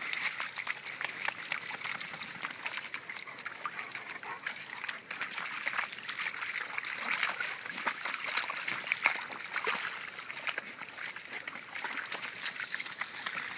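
Flat-coated retrievers splashing and sloshing through a muddy puddle, with one dog rolling in the water: an uneven, continuous run of small splashes and trickles.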